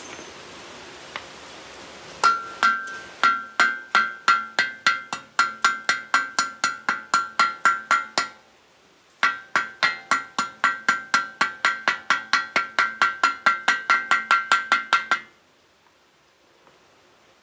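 Chipping hammer knocking slag off a fresh stick weld that joins a rebar to a galvanized square steel pipe. There are two runs of quick, ringing metallic taps, about four a second, with a short pause between them.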